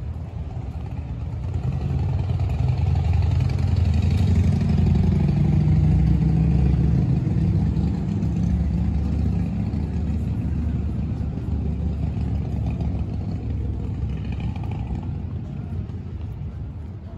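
A motor vehicle passing on a nearby street: a low engine and tyre rumble that swells about two seconds in, dips slightly in pitch as it goes by, then slowly fades away.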